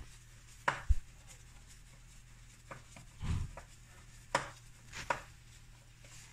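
Scattered clicks and knocks of gloved hands handling parts in a car's engine bay: about five sharp clicks, with a dull thud a little past three seconds in.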